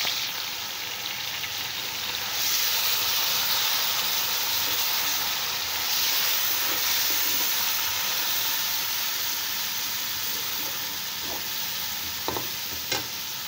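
Marinated chicken, onions and potatoes sizzling in hot oil in a steel pot while being stirred with a metal spoon: the chicken is being fried (bhuna) for a biryani qorma. A couple of sharp knocks near the end.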